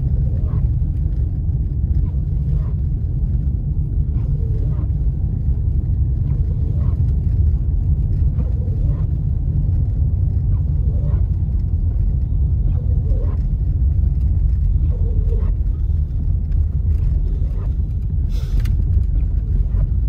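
Steady low rumble of a car driving on a snow-covered road, heard from inside the cabin: engine and tyre noise, with faint ticks every couple of seconds.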